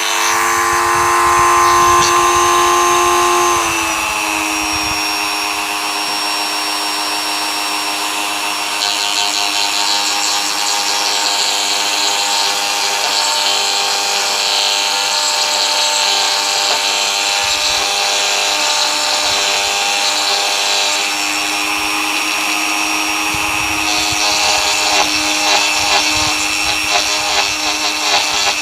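Dremel rotary tool with a 3 mm end mill running at high speed, a steady whine that drops in pitch about three and a half seconds in as it takes load. From about nine seconds in a harsher grinding noise of the end mill cutting joins it, stops briefly a little after twenty seconds, then comes back.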